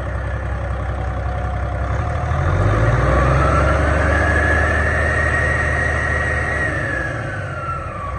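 2011 PACCAR MX13 12.9-litre six-cylinder diesel engine running on a test stand, revved up about two seconds in, held, then let back down toward idle near the end. A whine rises and falls with the revs.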